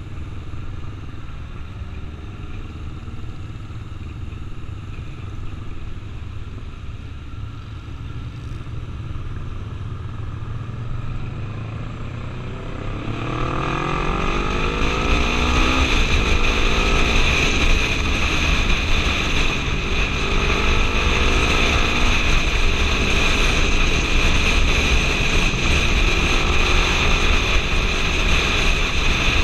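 Motorcycle engine running at low road speed, then accelerating about halfway through, the revs rising through several gear changes. At speed, wind rushing over the helmet-mounted microphone joins the engine.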